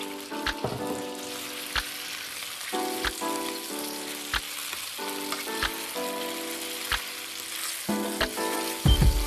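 Boiled pappardelle being tossed with tongs in a stainless steel pan of melted butter: a steady sizzle with sharp clicks of the tongs against the pan every half second to second.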